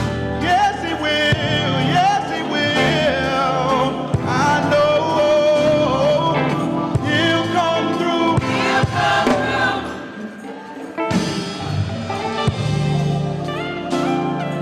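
Gospel choir singing over sustained low instrumental notes, with a brief softer passage about two-thirds of the way through.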